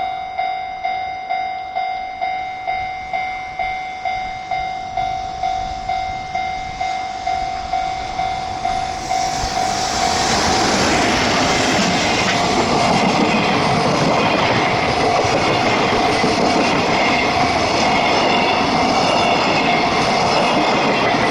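Japanese level-crossing warning bell ringing in an even beat, about two strikes a second. About ten seconds in, a freight train arrives and passes over the crossing; the steady, loud rolling of its wheels on the rails drowns out the bell.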